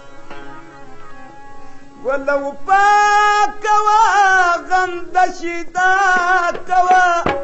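Music: for about two seconds only the instrumental accompaniment plays, then a man's singing voice comes in with long held, wavering notes over it.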